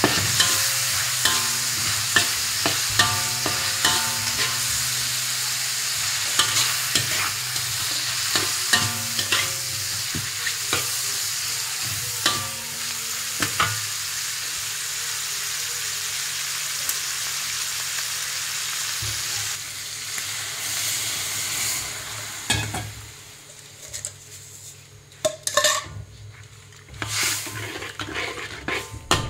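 Diced meat and shrimp sizzling as they are stir-fried in an aluminium wok, the metal spatula scraping and clinking against the wok. Near the end the sizzle dies away as liquid goes in, leaving quieter sloshing stirring and scattered clinks.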